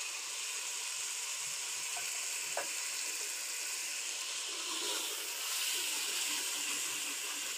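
Minced chicken and sliced onions sizzling in hot oil in a steel pot, stirred with a metal ladle, with one light knock about two and a half seconds in.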